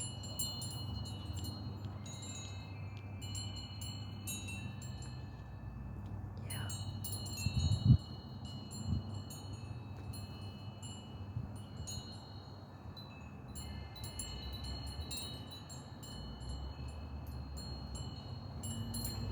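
Wind chimes ringing: several overlapping high tones that hang and fade, with light tinkling strikes, over a low rumble. A dull thump about eight seconds in.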